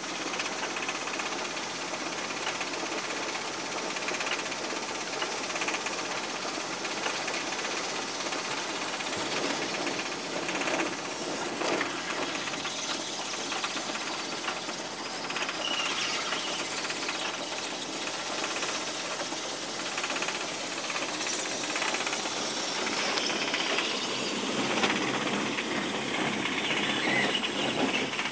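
Electric-driven hemp bud stripper running: a steady mechanical rattle and clatter from its motors and chain feed as hemp stalks are fed through and stripped.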